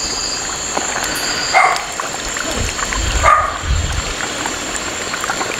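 Pork carnitas cooking in fat in a large metal cazo over a wood fire, a steady bubbling hiss. Two short, louder calls, like a dog barking, stand out about one and a half and three seconds in.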